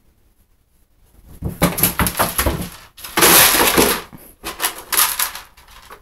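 Dry cat kibble and a plastic food dish rattling and clattering in an empty bathtub as a kitten gets at the food, in three loud bursts with the middle one loudest.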